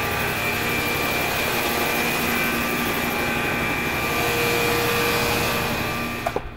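Groundwater remediation treatment equipment running loudly inside its enclosure with the doors open: a steady machine noise carrying a steady high tone. Near the end the insulated doors swing shut with a couple of small knocks, and the noise drops sharply as the enclosure muffles it.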